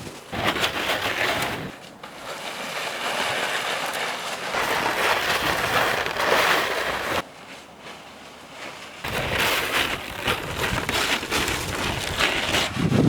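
Footsteps crunching over rough ground, in three stretches broken by abrupt cuts.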